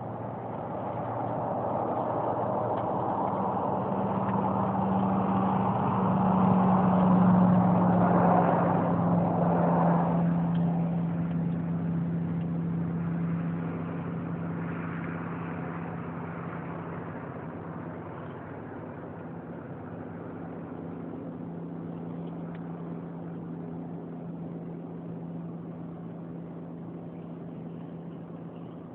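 A motor vehicle's engine running, growing louder to a peak about seven or eight seconds in and then fading, leaving a steady engine hum.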